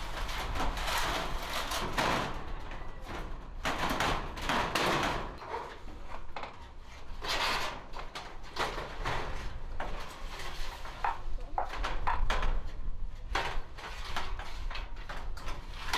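Corrugated metal roofing sheets scraping and rattling as they are slid and shifted into place on a shed roof, with a few sharper knocks of metal against metal.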